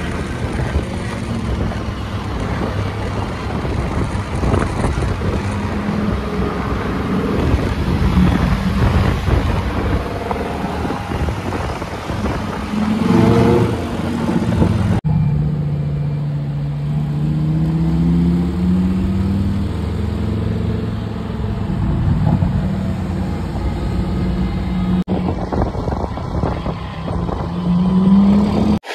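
Lamborghini Huracán's V10 engine running in city traffic, its pitch rising and falling as it revs and eases off, over road and traffic noise. The sound changes suddenly twice where clips are joined, and it revs up again near the end.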